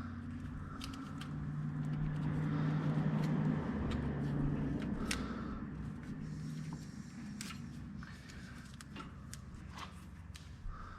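Hands handling and pulling wiring, with scattered sharp clicks and rattles, over a steady low machine hum that swells for a few seconds and then eases off.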